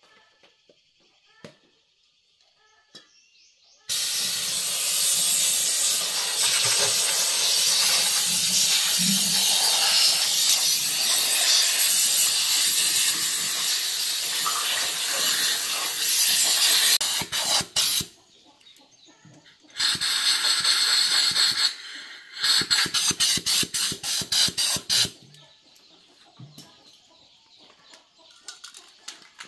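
Compressed-air blow gun on a coiled air hose blasting dust off a small diesel engine. A loud steady hiss for about thirteen seconds, then a few short bursts, another couple of seconds of hiss, and a quick run of rapid short puffs as the trigger is flicked.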